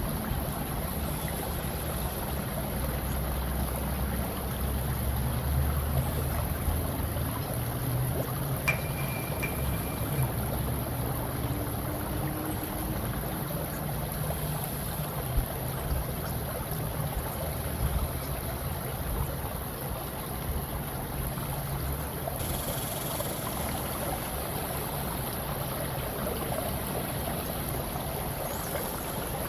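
Steady flowing-water nature ambience: a continuous rushing of water with a deep low rumble underneath, unchanging throughout.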